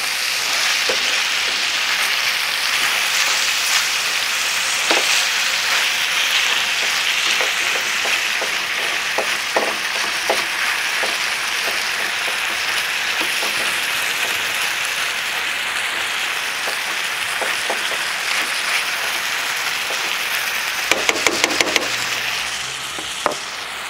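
Beef cubes and chopped tomatoes sizzling steadily in a hot frying pan while a slotted turner stirs them, with light scrapes against the pan. A quick run of sharp clicks comes near the end.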